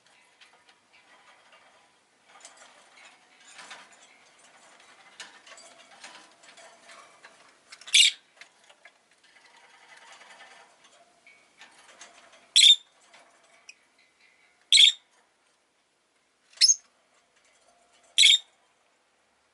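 Rosy-faced lovebird giving soft, scratchy chatter and clicks, then five loud, sharp, short calls a couple of seconds apart.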